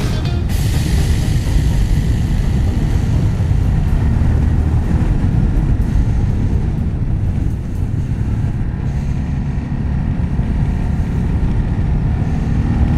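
Yamaha XT 600's single-cylinder four-stroke engine running on the road, mixed with a steady rush of wind noise. Near the end the engine note rises as the bike accelerates.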